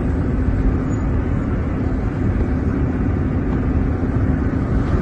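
Steady low rumble inside a car, its engine running, with a faint steady hum.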